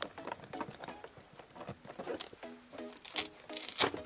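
Background music: a plucked-string tune with quickly repeated notes coming in about halfway through, over light, sharp percussive clicks.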